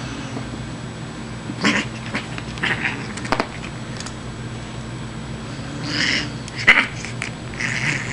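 Siamese cat making several short, hissy bursts of sound while playing with a feather-wand toy, the odd hissing she makes in play rather than in anger.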